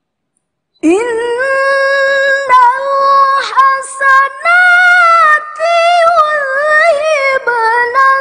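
A woman reciting the Qur'an in melodic tilawah style, starting about a second in after silence. She holds long, ornamented notes with a few short breaths, and her voice climbs higher through the middle.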